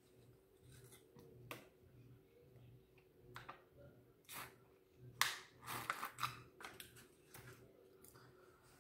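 Drinking from a foil juice pouch: the foil crinkles and crackles in short sharp bursts, most densely and loudest from about five to six and a half seconds in, with scattered softer clicks before it. A faint steady hum runs underneath.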